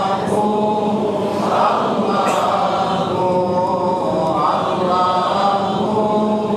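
A group of men chanting together in unison, long sung phrases that swell and fall, typical of a congregation's zikr or salawat in a mosque.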